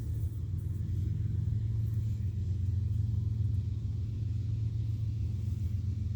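A steady low rumble with a constant hum, which stops abruptly just after the end.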